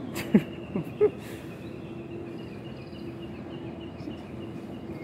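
Background ambience of a large exhibition hall: a steady hum with a faint high steady tone over it, and a few brief short sounds in the first second or so.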